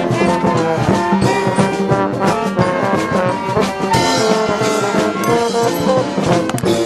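Street marching band playing: brass horns carrying a tune over steady drum hits.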